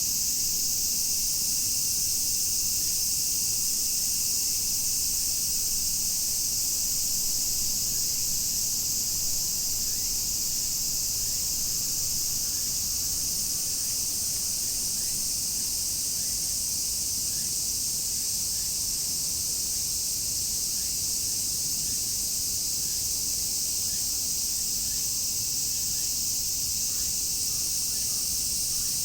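Dense chorus of cicadas, a steady high-pitched buzz that holds without a break.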